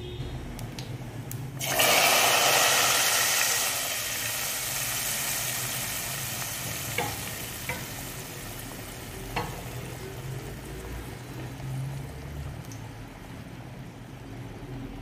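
Hot oil tempering with chilli flakes and cumin hitting the mutton nihari gravy: a sudden loud sizzle about two seconds in that slowly dies down. A few light utensil clicks come later.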